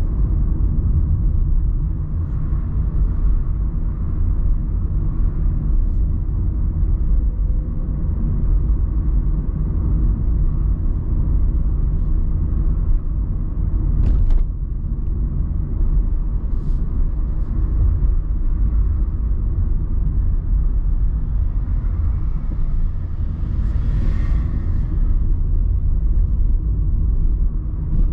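Car driving at town speed, heard from inside the cabin: a steady low rumble of road and engine noise. A single sharp click about halfway through, and a brief hiss a little later.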